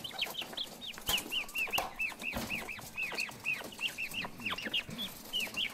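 Japanese quails peeping in their cage: a rapid, uneven run of short chirps that fall in pitch, several a second from many birds, with a few sharp clicks among them.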